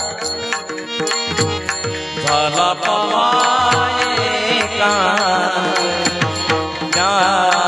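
Marathi devotional kirtan music: voices singing an abhang over drum strokes and small hand cymbals keeping the beat. The singing drops back for the first two seconds, leaving mostly the drums and cymbals, then returns in full.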